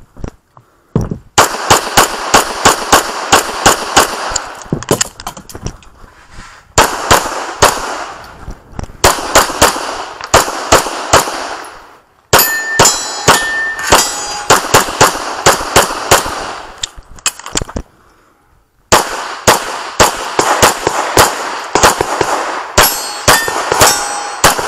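Semi-automatic pistol fired in rapid strings of shots during a practical shooting stage, the shots coming in quick succession with brief pauses of about a second a few times as the shooter moves between positions. Steel targets ring with a held metallic tone when hit, clearest about halfway through and near the end.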